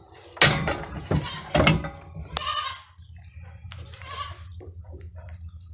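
A burst of close rustling and handling noise, then two loud farm-animal calls about two seconds apart, bleat-like in character.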